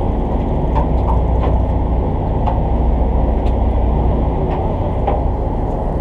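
Boat engine running steadily with a loud low rumble, with a few light clicks scattered through it.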